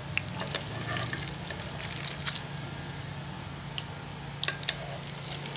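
Battered onion rings deep-frying in hot oil in a pot: a steady sizzle with scattered crackles and pops, and a few sharper clicks near the end.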